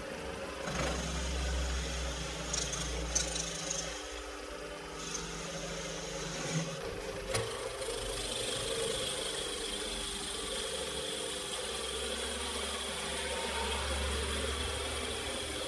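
Old metal lathe running under power, a cutting tool turning a small metal workpiece: a steady motor hum and rumble with a few light clicks, and a high, steady whine from the cut coming in about halfway through.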